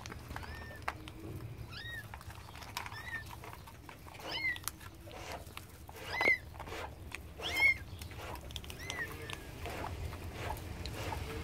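Kittens mewing: short, high-pitched mews about every second, the loudest two a little past the middle, with light rustling and clicks between them.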